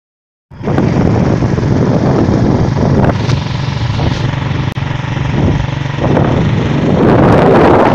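Silent for about half a second, then a motorcycle engine running steadily with wind noise on the microphone.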